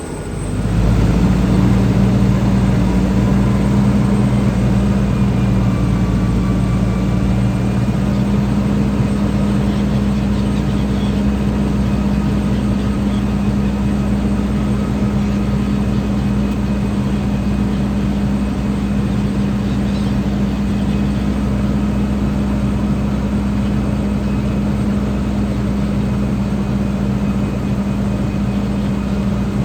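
Grimme Varitron 270 self-propelled potato harvester running steadily while lifting: a loud, even engine drone with a low hum that swells up in the first second and then holds.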